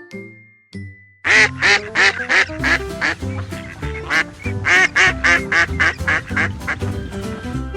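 Duck quacking in a rapid run of repeated quacks, several a second, starting about a second in, over light background music.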